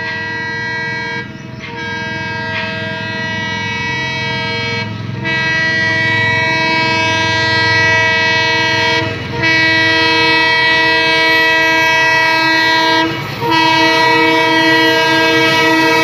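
WDM-3A diesel locomotive's horn sounding long, steady blasts, broken by a few short gaps, as the train approaches at speed. The horn grows louder over the rising rumble of the engine and wheels.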